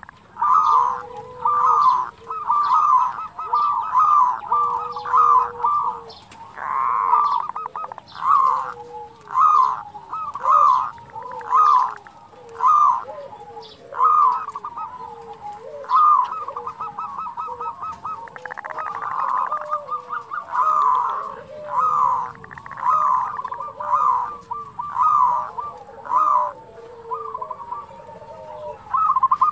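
Zebra dove cooing over and over: short, rapid coo phrases about once a second, with a couple of quick rattling trills among them.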